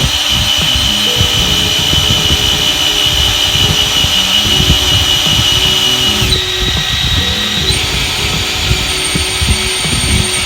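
Power drill running steadily under light pressure, its Time-Sert drill bit cutting out the stripped head-stud hole in a Honda B18B1 engine block. The whine shifts in pitch about six seconds in.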